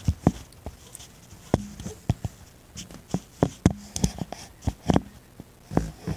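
Handling noise on the recording phone: about eighteen sharp, irregular knocks and thumps as the phone is bumped and moved about.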